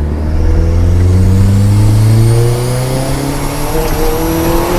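Golf GTI Mk4's 1.8 20-valve turbo four-cylinder accelerating hard, engine pitch climbing steadily, with the turbo's whistle rising as it spools up. The owner says the turbo is only building about 0.9 kg of boost, short of what it used to make.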